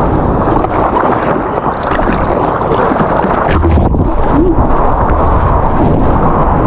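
Seawater splashing and sloshing over a waterproof action camera at the water's surface, in a loud, steady wash.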